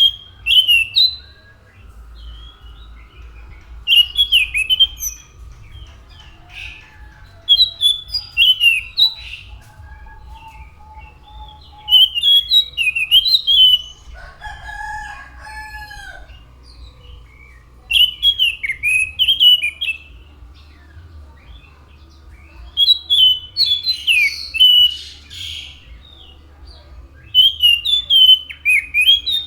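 Anis macan thrush singing: seven short, quick phrases of slurred, rising and falling whistled notes, one every four to five seconds. A fainter, lower drawn-out call from another animal sounds about halfway through.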